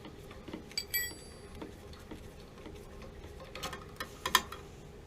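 Light metallic clicks and taps from working loose the pilot tube and fittings on a water heater's gas control valve, with one ringing clink about a second in and a quick cluster of clicks near the end.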